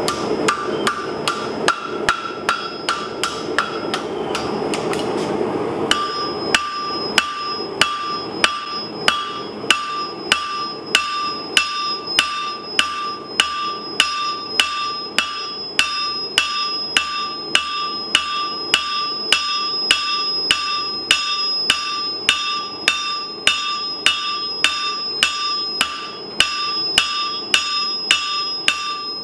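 Hand hammer striking red-hot steel on an anvil, working a bar over the horn and then flattening the bar's end on the face. It strikes in a steady rhythm of about two blows a second, each leaving the anvil ringing, and the ring changes pitch about six seconds in. A steady rushing noise lies under the first few seconds.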